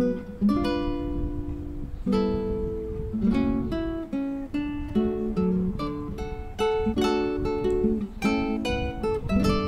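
Background music on an acoustic guitar, picked and strummed chords played at an easy pace.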